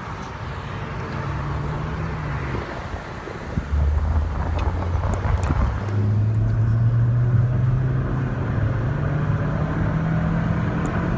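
Car engine and road noise while driving. Its low hum drops back, then grows louder about four seconds in and climbs in pitch as the car accelerates.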